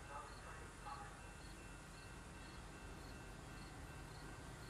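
An insect chirping steadily at a high pitch, about two chirps a second, faint over a low steady rumble. A few lower chirps come in the first second.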